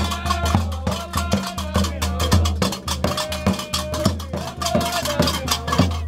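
Gnawa music played live: karkabous (iron double castanets) clacking in a fast, steady rhythm over a deep drum beaten with a stick, with men's voices chanting held notes.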